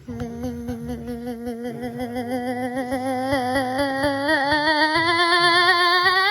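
One long held vocal note, a playful funny noise made with the voice, steady in pitch with a slight wobble and growing a little louder. It jumps sharply up in pitch at the very end.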